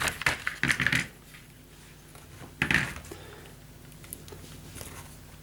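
Clicks and knocks of an opened electric fan heater's plastic casing and internal parts being handled: a quick run of them in the first second, then another short clatter near the three-second mark.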